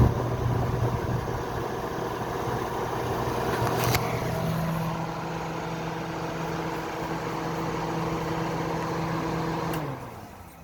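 Bare-bones Kenmore dehumidifier running, its compressor and fan motor giving a steady mechanical hum, with a sharp click about four seconds in. Near the end the unit shuts off and its motors wind down, the hum sliding lower as it fades. The owner believes the compressor is low on refrigerant.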